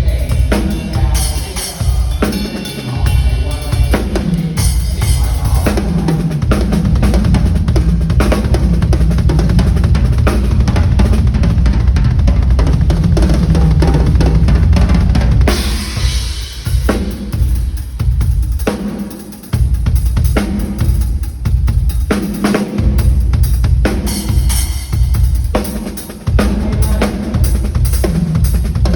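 Yamaha Absolute drum kit being played: bass drum, snare and rimshots in grooves and fills. There is an unbroken run of playing from about six to fifteen seconds in, then shorter phrases with brief gaps.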